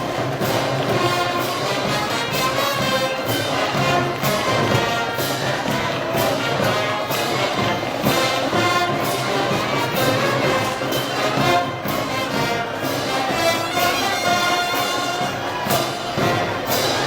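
Brass band music: trumpets and trombones playing a festival march over a steady beat.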